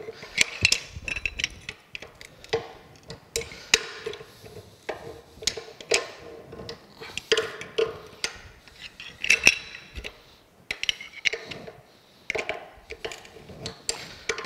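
Large adjustable wrench clinking and scraping on a stubborn nut inside a steam locomotive stoker engine's casting, reset again and again for short pulls of a fraction of a turn. Irregular sharp metal clicks and taps, the loudest about nine and a half seconds in.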